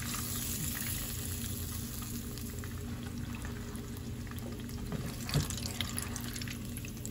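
Hot oil sizzling steadily around breaded flounder fillets frying in a pan, with a short knock of the slotted spatula about five seconds in as a fillet is lifted out.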